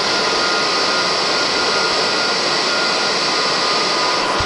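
Single-phase centrifugal compressor running steadily at about 12,300 rpm: an even rush of air with a thin, steady high whine.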